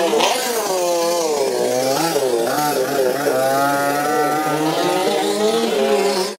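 Dirt bike engine revving, its pitch rising and falling several times as it pulls away, then cutting off abruptly at the end.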